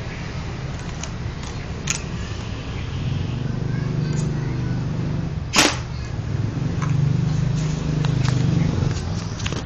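Homemade bolt-action airgun firing a single loud shot about halfway through, with a few lighter mechanical clicks from the gun being handled before and after it. A steady low hum runs underneath.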